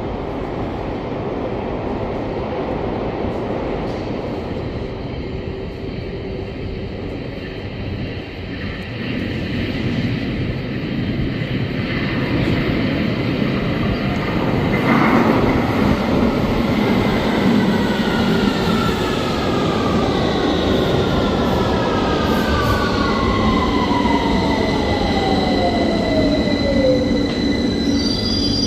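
A train approaching: a steady rumble that grows louder about a third of the way in. In the second half several whining tones slide steadily downward in pitch, which is the weird sound the title points to.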